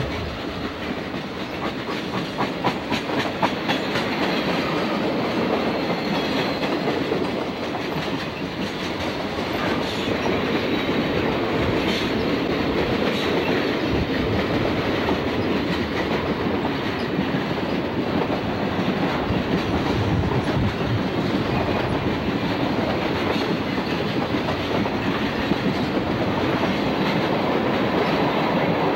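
Grand Trunk Western freight train's cars rolling past, a steady run of wheel noise with the wheels clacking over rail joints.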